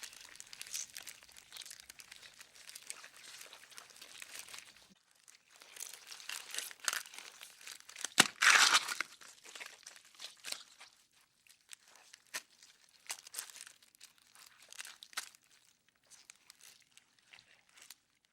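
Beetle movement sound effect: dry, crinkly scratching and crackling clicks in irregular bursts. The loudest burst comes about eight and a half seconds in, after which the clicks grow sparse and stop just before the end.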